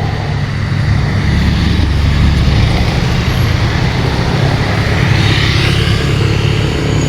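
Motor vehicle passing close on the road, its engine giving a steady low drone over tyre and road noise, with no horn sounded.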